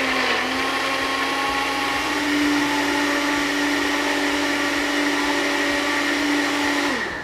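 Countertop blender motor running steadily, puréeing cooked carrot soup; its hum rises slightly about two seconds in, then winds down, falling in pitch, as it is switched off near the end.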